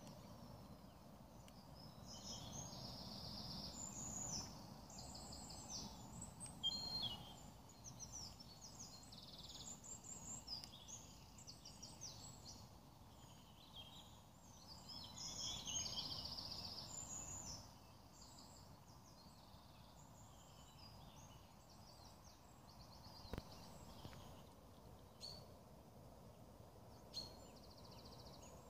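Small songbirds singing faintly: a run of high, quick trilled and warbled phrases through the first half or so, then sparser phrases near the end, over a low, steady background rumble.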